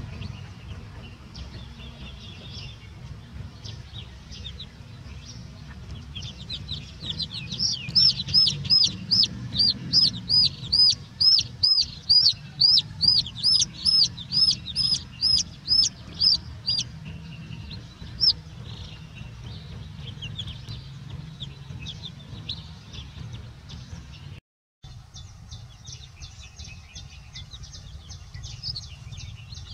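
Young chicks peeping: a long series of loud, high, evenly spaced peeps, about two a second, in the middle, with softer scattered peeps before and after, over a steady low rumble.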